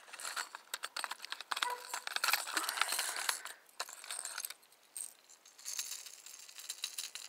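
Hard plastic lipless crankbaits and their treble hooks clicking and clattering against each other and the plastic tackle box as a hand rummages through a compartment, busy for the first four seconds or so, then only a few scattered clicks.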